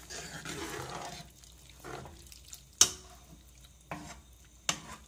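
Steel ladle stirring and mashing thick cooked lentil-and-vegetable gravy in an aluminium pressure-cooker pan: a wet stirring sound for the first second, then a few sharp clinks of the ladle against the pot, the loudest near the middle.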